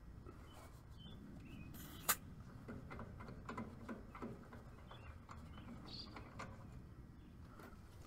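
Faint clicks and taps of tools and brass hose fittings being handled at an air conditioner's service valves, with one sharp click about two seconds in. Birds chirp briefly in the background.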